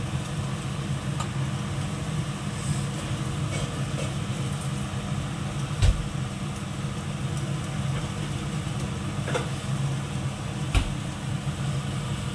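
A steady low rumble over a gas burner cooking kebab skewers in a wire grill basket, with two sharp metal knocks, about six and eleven seconds in, as the skewers are turned.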